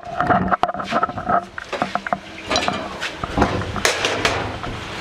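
Scattered metal clinks and clanks as the steel parts and housing of a rice huller are handled.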